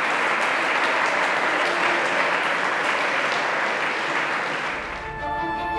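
Audience applauding steadily. The applause fades out near the end as theme music begins.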